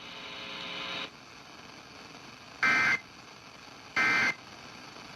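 Emergency Alert System end-of-message data bursts on a NOAA Weather Radio broadcast: three short, identical buzzy bursts of two-tone digital code, about 1.3 seconds apart, signalling the end of the warning message. A faint hum rises and cuts off about a second in, before the bursts.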